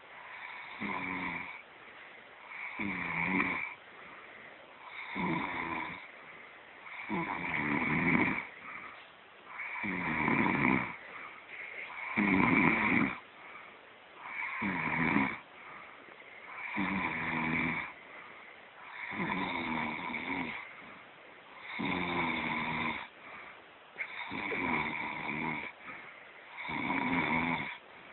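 A sleeping person snoring in a steady rhythm: one snore about every two and a half seconds, each lasting about a second.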